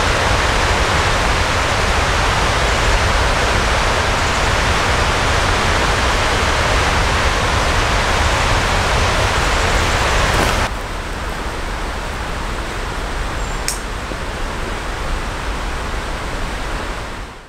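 Loud, steady rush of whitewater, like a mountain creek cascade. About ten and a half seconds in, it cuts abruptly to a somewhat quieter rush of the same kind.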